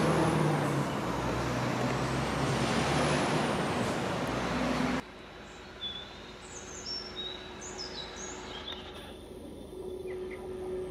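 A train running past close by: a loud, steady rumble of wheels on rail with a thin high whine that dips and rises, cutting off abruptly about five seconds in. Then a quiet scene of birds chirping over a faint steady hum.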